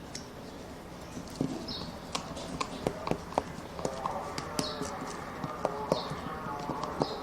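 A spoon or spatula clicking and knocking irregularly against a bowl, several times a second from about a second and a half in, as a runny slime mixture is stirred.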